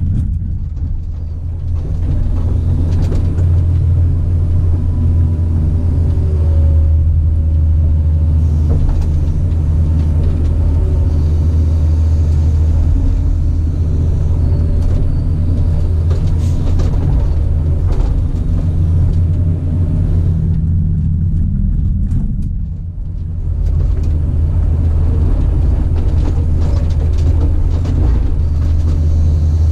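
Caterpillar 973C track loader's diesel engine running steadily at working revs, with a low drone. It eases off briefly about a second in and again a little past the two-thirds mark, and faint knocks and clatter from the machine sound over it.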